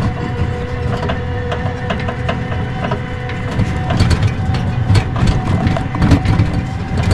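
Kuba GL 1800 MAX motor tricycle engine pulling steadily uphill in low gear, a constant-pitch drone over a low rumble. Short knocks and rattles from the rough, rutted dirt track come through, more often in the second half.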